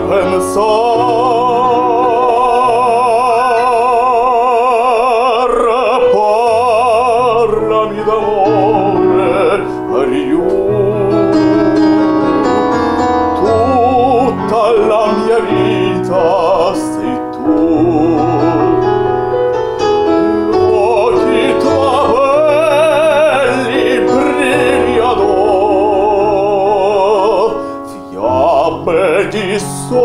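A man singing an Italian song in operatic style with strong vibrato, holding a long note over the first few seconds, accompanied by piano.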